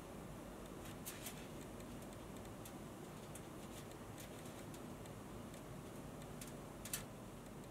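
Small, sharp metal clicks of jeweller's pliers working the prongs of a setting that holds a jade stone: a pair about a second in, a few fainter ticks, and the loudest click near the end, over faint room hiss.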